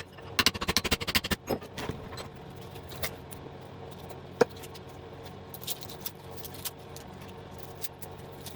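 Fast run of metal hammer blows for about the first second and a half, then scattered metallic clinks and knocks over a faint steady hum, with one sharper strike in the middle: hammer and punch knocking the copper out of small transformers, sped up.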